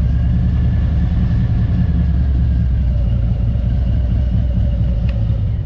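Harley-Davidson Road Glide's V-twin engine running steadily on the road, a continuous low rumble mixed with wind and road noise.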